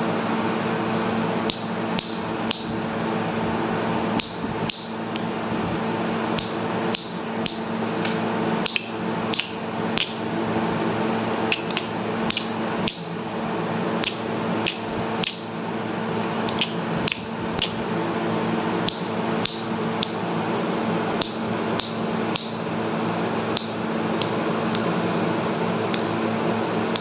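A steady mechanical hum, like a fan or appliance, with many sharp irregular clicks or taps over it, about one or two a second.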